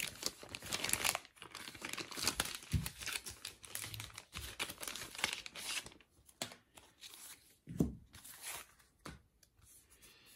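Thin clear plastic zip-lock bag crinkling and rustling as the game cards are handled and slid out of it. It is busy for about six seconds, then comes in a few scattered rustles, with a soft knock near eight seconds.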